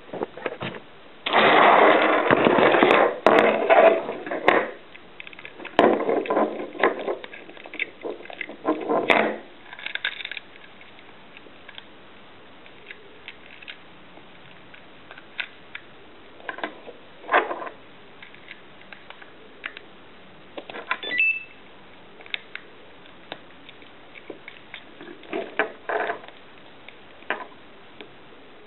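Packaging being handled: long stretches of rustling and crackling in the first third, then scattered light clicks and knocks as small parts are picked up and set down. There is a brief high beep about two-thirds of the way through.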